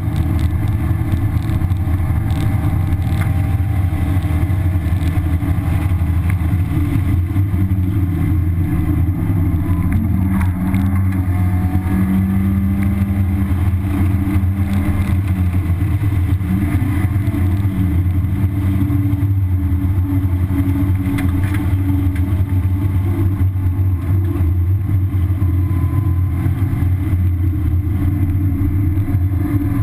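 1991 Mazda Miata's 1.6-litre four-cylinder engine with stock exhaust, driven hard at track speed and heard from inside the cabin over a loud, steady low rumble of road and wind noise. The engine note rises and falls as the car accelerates and slows.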